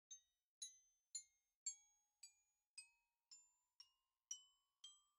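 Faint background music of glockenspiel-like bell notes, struck evenly about twice a second, with a held tone coming in about a third of the way through and climbing slowly in small steps.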